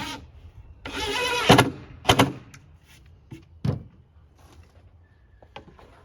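Cordless drill/driver whirring briefly about a second in as it drives a drywall screw into plywood, followed by a few sharp knocks, the loudest just after the whir.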